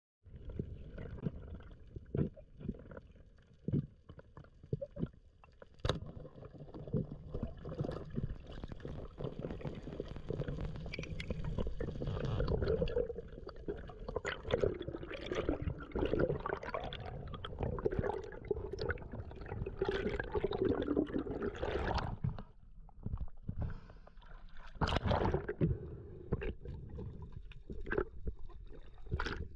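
Water sloshing and gurgling against a spearfisher's diving camera, a muffled, uneven wash. Irregular clicks and knocks sound throughout.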